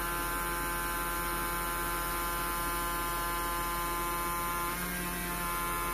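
Steady electrical hum and buzz from a homemade low-voltage generator circuit driving a small DC motor, with a slight change in tone about five seconds in.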